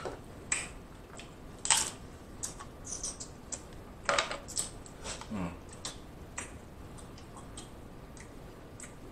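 King crab leg shells cracking and snapping as they are broken apart by hand, a scatter of short sharp cracks with the loudest about two and four seconds in, thinning out over the last few seconds.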